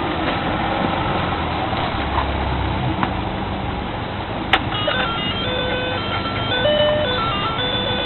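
Electronic toy piano playing a simple jingle-like tune in stepping notes, with a sharp click about halfway through.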